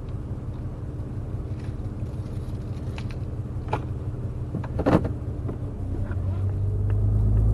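Pickup truck's engine idling with a steady low hum heard from inside the cab, with a few sharp clicks and knocks of things being handled, the loudest about five seconds in. Near the end the engine grows louder as the truck starts to pull away.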